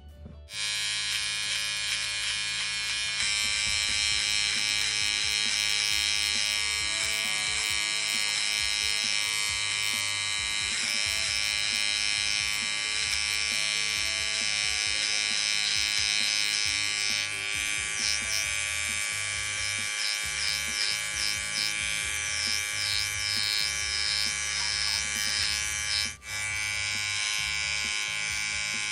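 Wahl cordless shaver trimmer switching on about half a second in and running with a steady buzz. From about the middle the buzz wavers as the trimmer works along the hairline behind the ear. Near the end it drops out for a moment and comes straight back.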